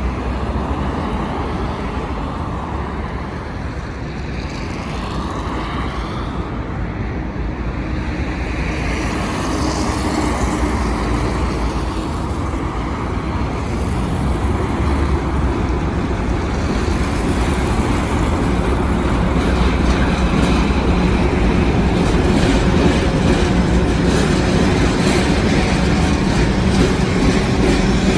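Diesel locomotive hauling a train, its engine running with a steady hum that grows gradually louder through the second half as it comes closer, with wheels rumbling on the rails.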